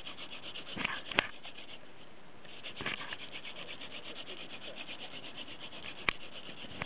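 Cattail-stalk hand-drill spindle rasping against a white-poplar hearth board as it is spun back and forth between the palms to build a friction-fire ember, in a fast, even rhythm. There is a short break about two seconds in, and a sharp click a second in and another near the end.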